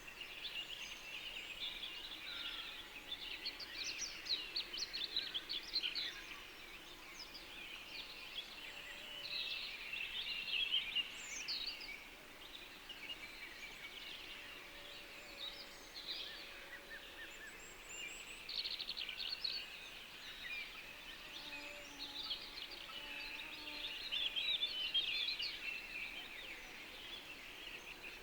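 A chorus of small birds chirping and twittering continuously, with many overlapping quick high calls that swell in a few busier patches.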